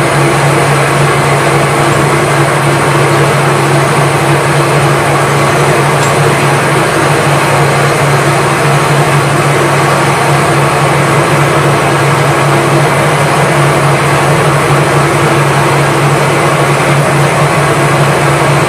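Metal lathe's motor and drive running steadily: a constant low drone with a fainter high whine, unchanged throughout.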